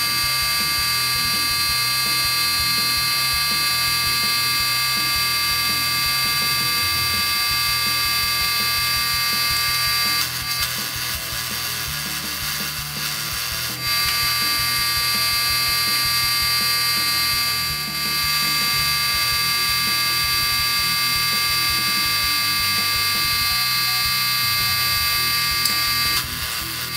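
Electric grinder running steadily against the cast-iron reservoir with a high whine. It eases off for a few seconds about ten seconds in, then runs on and eases off again near the end.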